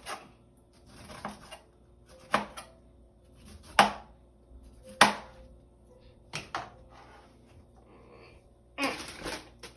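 Kitchen knife knocking on a cutting board while cutting up a pineapple: about seven sharp knocks spaced a second or so apart.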